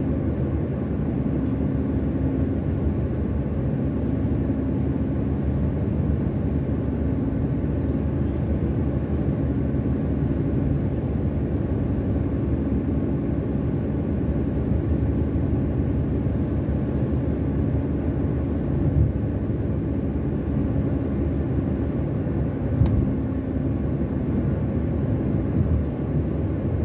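Car cruising steadily along an open road, heard from inside: a steady low rumble of engine and tyre noise with a faint hum that comes and goes. There is a brief knock near the end.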